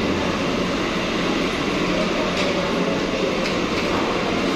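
Steady din of a busy restaurant dining room: many diners talking at once under ventilation noise, with a few faint clicks.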